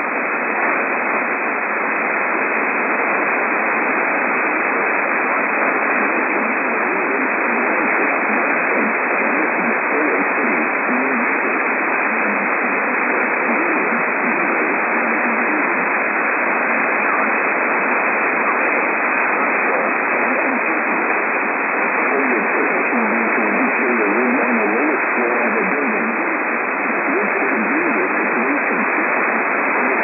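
Heavy static hiss on a weak AM radio broadcast, with a faint voice barely audible underneath. The sound is thin and muffled, cut off above the upper midrange as AM reception is.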